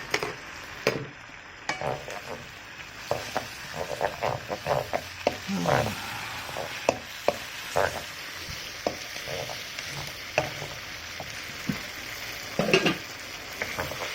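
Chicken and vegetables sizzling in a pan while being stirred, a utensil knocking and scraping against the pan many times, as cornflour thickens the honey and soy sauce.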